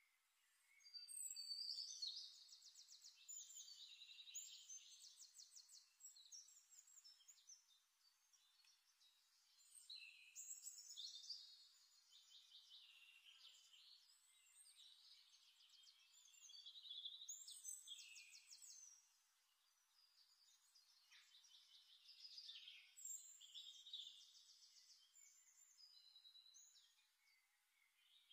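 Faint birdsong from a small songbird, singing long phrases of rapid trills and chirps, with pauses of a second or two between them.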